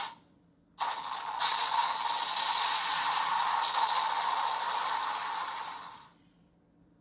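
Electronic sound effect played through a Kamen Rider toy transformation belt's small speaker: a steady, noisy, scraping-like effect that starts about a second in and fades out around six seconds in.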